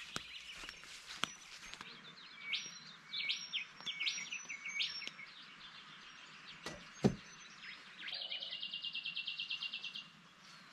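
Birds calling: a run of four sweeping whistled notes, then a fast, even trill for about two seconds near the end. A single sharp knock about two-thirds of the way through is the loudest sound.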